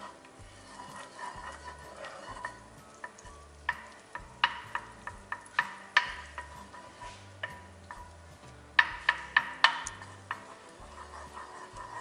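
Wooden spoon stirring butter as it melts in an enamelled pot, with faint sizzling. The spoon knocks against the pot in irregular taps, with a quick run of taps about nine seconds in.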